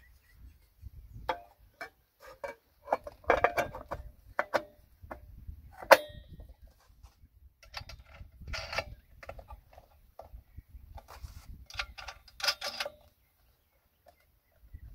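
Irregular clicks, knocks and clattering of metal and plastic parts as the bar, chain and side cover are fitted by hand onto an Ojenas 105cc chainsaw, with one sharp click about six seconds in.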